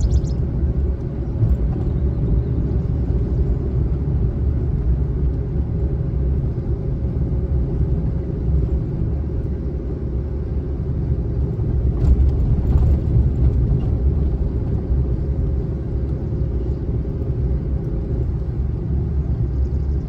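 Car driving along a rough country road, heard from inside the cabin: a steady low rumble of tyres and engine, with a faint steady whine above it.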